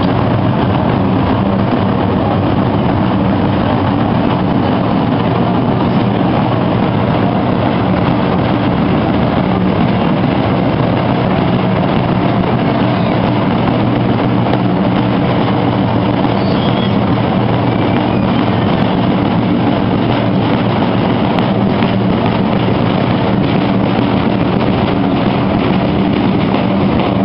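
A group of procession drums played together in a continuous, dense roll. The sound is loud and steady, with no break.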